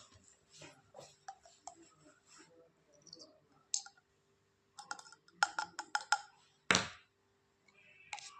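Scattered clicks and light knocks of small objects being handled, with a quick run of sharp clicks about five seconds in and one louder knock just before the seventh second.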